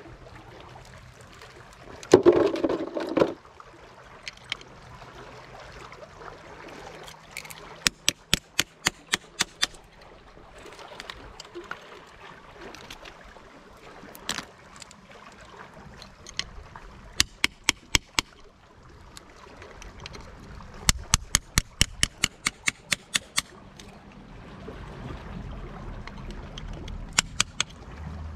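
Small hammer tapping on oyster shells on a rock, in quick runs of sharp clicks at about four a second, with pauses between the runs. A louder rough noise lasting about a second comes near the start.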